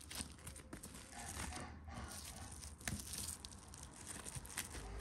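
Plastic cling film crinkling and rustling as hands roll and handle minced meat wrapped in it, with a few sharp small knocks.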